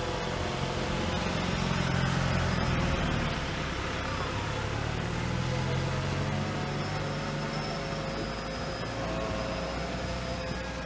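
DJI Phantom 3 Standard quadcopter hovering overhead, its propellers giving a steady whine made of several tones, shifting slightly in pitch near the end. A low, uneven rumble runs underneath.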